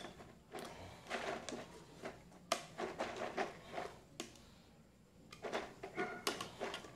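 A utensil scraping and knocking against the inside of a container, loosening half-frozen banana-strawberry sorbet stuck to its walls and bottom. Irregular scrapes, with a short lull a little past the middle.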